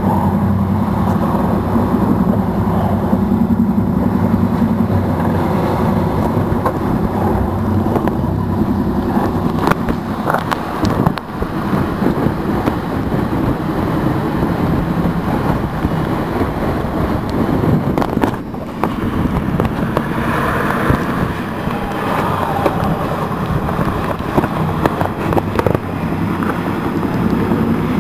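Wind buffeting the microphone over the steady rush of water past a sailing trimaran's hulls at speed in heavy seas, with a few brief knocks around the middle.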